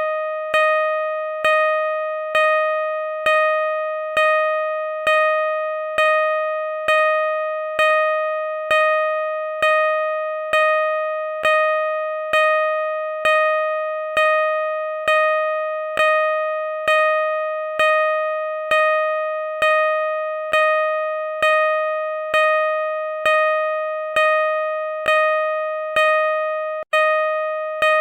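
Car parking sensor beeping: one steady pitched tone repeated about once a second, each beep running straight into the next, with a brief break about 27 seconds in.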